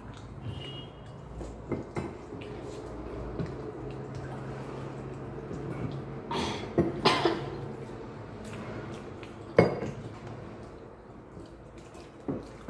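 Scattered clinks and knocks of brass cups and plates on a wooden table while pani puri is eaten, the loudest knock about ten seconds in, over a steady low hum.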